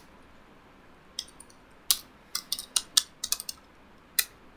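Computer keyboard being typed on: about a dozen sharp key clicks in uneven bursts, starting about a second in.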